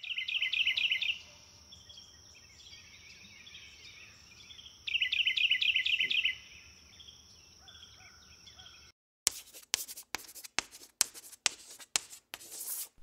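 Birdsong ambience: two bursts of rapid trilling chirps, one at the start and one about five seconds in, over a steady high tone. After a short gap about nine seconds in, chalk scratches on a chalkboard in quick, irregular strokes.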